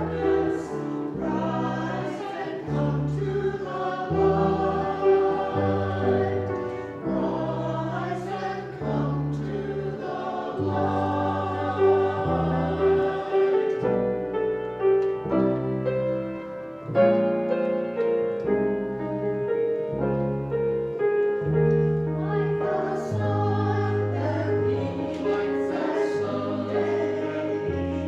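Choir singing a hymn with instrumental accompaniment, steady held bass notes changing every second or two beneath the voices.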